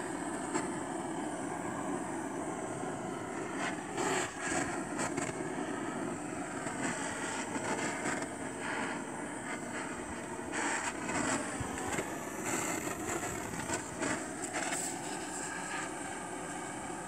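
Handheld butane torch on a gas canister running with a steady roaring hiss, its flame held against fabric, with a few brief louder swells.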